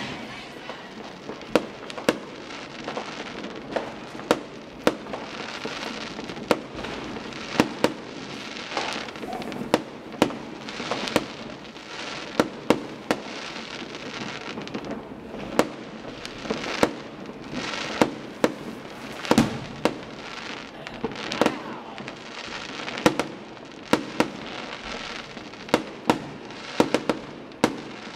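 New Year's fireworks and firecrackers going off: sharp bangs one after another at irregular intervals, about one or two a second, over a continuous crackling hiss.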